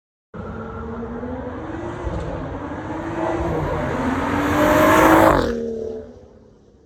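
BMW 335i's turbocharged N55 inline-six under hard acceleration through an aftermarket exhaust. The pitch climbs in steps and it grows louder to a peak about five seconds in, then the pitch drops and the sound fades quickly as the throttle is lifted.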